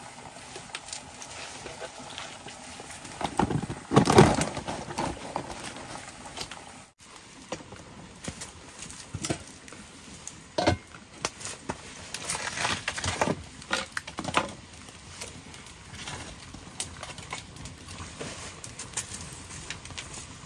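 Clatter and knocks of cookware being handled and set onto a pot over a wood fire, among scattered small clicks and crackles, with a louder burst of handling noise about four seconds in.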